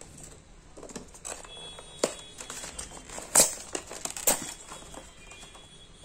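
Plastic toy loader being worked out of its polystyrene foam packing tray: the foam creaks and rubs, with sharp cracks about two seconds in and a louder pair around three and a half and four seconds in.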